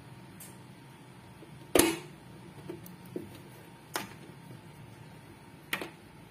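Sharp clicks and knocks inside an open hematology analyzer over a low steady hum. The loudest comes about two seconds in, and two more follow at about two-second intervals, with a few fainter ticks between them.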